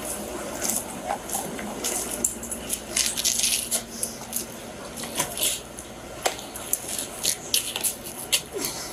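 Light metallic jingling and clinking in quick, irregular bursts, from police metal gear such as handcuffs and keys moving as people walk.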